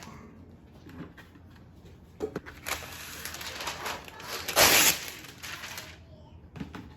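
Rustling and clicking of hands handling food and packaging: a few clicks, then a stretch of rustling with a short, loud rasp about halfway through.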